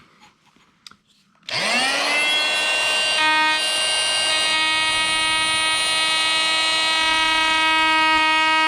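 Harbor Freight oscillating multi-tool switched on about a second and a half in, its motor whine rising quickly in pitch and then holding steady as its Ridgid wood-and-metal blade cuts into a slab of onyx.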